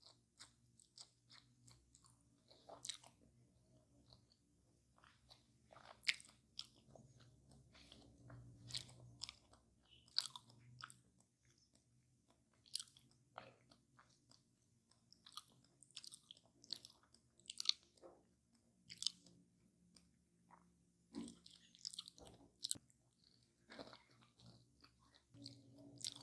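Close-miked chewing of crispy pie crust: irregular crunches and bites, often one or two a second, with quieter mouth sounds between them.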